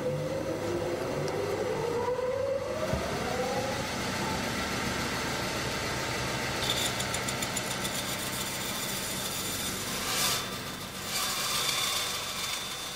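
Electric saw motor spinning up, its pitch rising over the first few seconds, then running steadily. A harsher hiss joins about halfway through.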